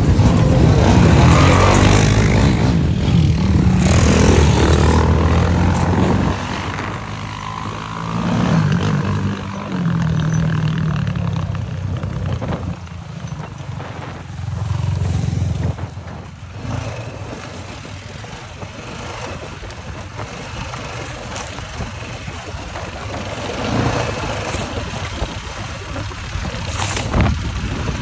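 Quad ATV engines running and revving, loudest in the first six seconds with pitch rising and falling, then running quieter and steadier with short swells as the ATVs ride on.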